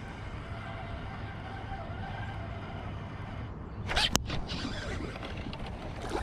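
Fishing line zipping and a sharp click about four seconds in, against a steady low background. This is typical of casting and retrieving a spinnerbait with a rod and reel.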